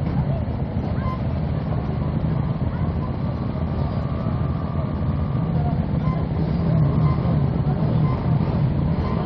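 Racing quad's engine idling steadily.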